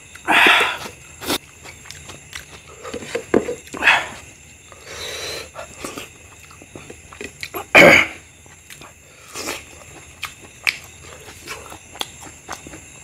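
Close-miked eating of rice and mutton curry by hand: wet chewing and lip-smacking with small clicks, broken by a few louder wet mouth sounds, the loudest about eight seconds in.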